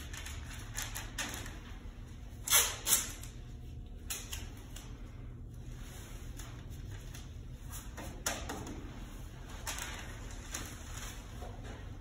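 Masking tape being pulled off the roll in short rips while a panel is masked for paint. The loudest two rips come close together about two and a half seconds in, with quieter handling sounds between.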